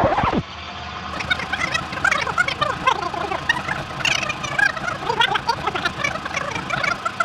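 Tape-rewind sound effect: rapid, high-pitched garbled chatter of sped-up audio, like a cassette or video tape scanning in rewind. It starts after a brief pitch sweep near the beginning.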